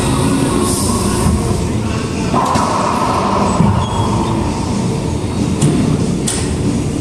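Background music: a dense, steady track with a held note partway through and a few sharp hits.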